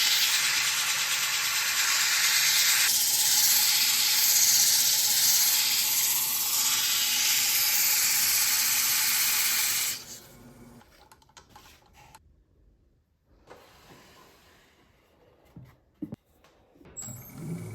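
Steady loud hiss of air or spray that cuts off about ten seconds in, followed by a quiet stretch with a few small knocks.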